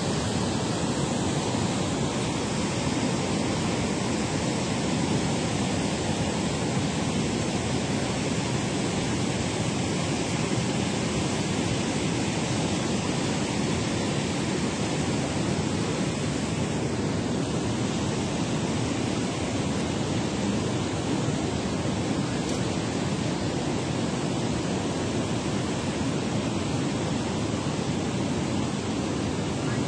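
Steady rush of water pouring through a dam spillway and churning in the tailwater below it.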